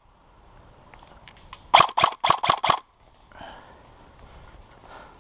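HPA-powered airsoft rifle with a Wolverine Inferno Gen 2 engine firing a quick string of five shots about two seconds in, about four shots a second.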